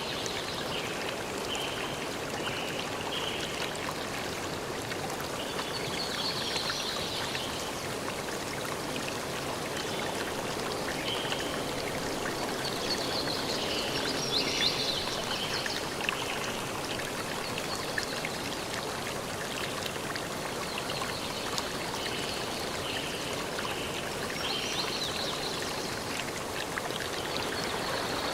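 A stream of water running steadily over rocks, with short high chirps coming in now and then.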